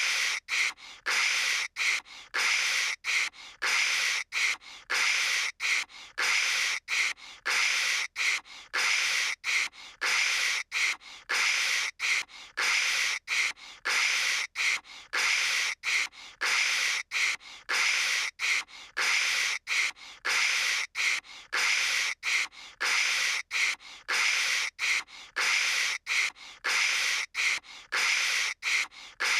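A voice imitating telephone static with a hissing "kshh" sound, chopped into short bursts with brief gaps about twice a second.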